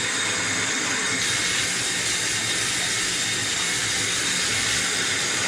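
Warm water pouring steadily into a bucket of melted-soap mixture, a continuous splashing rush that gets a little brighter about a second in.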